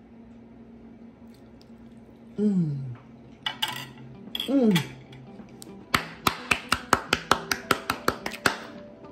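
A woman's two long falling 'mmm' hums of relish, then a rapid run of sharp clicks, about five a second, over faint background music.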